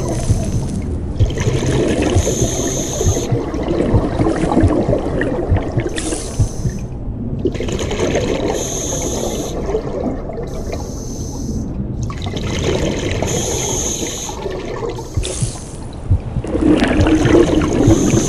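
Scuba diver breathing through a regulator, recorded underwater: exhaled bubbles gurgle and rush past, with a hiss that comes and goes every few seconds as each breath cycles.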